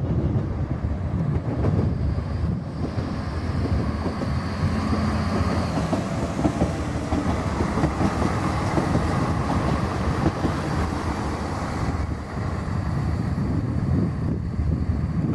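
Two coupled SNCF X73500 diesel railcars running past close by, their engine and wheel noise swelling as they go by and easing off near the end, with a high whine briefly on top. Wind buffets the microphone throughout.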